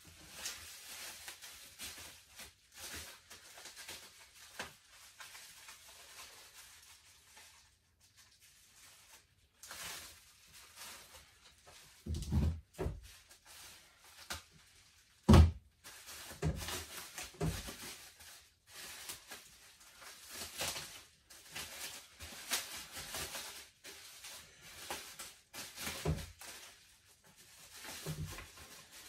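Handling noises from working on a mountain bike and its packaging: rustling and rubbing with scattered knocks and thunks. A single sharp knock about halfway through is the loudest sound.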